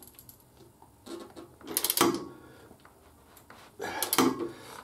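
Torque wrench ratcheting as a bolt is tightened to torque, in two short bursts of rapid clicks, about a second in and again near the end.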